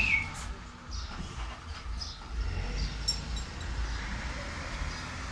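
Rear-loading garbage truck's engine running with a steady low rumble. A short high squeak at the start, and a few light clinks about three seconds in.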